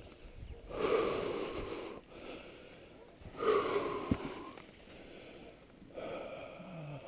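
A hiker breathing heavily close to the microphone, with three long exhales a few seconds apart, the last ending in a short falling voiced sigh.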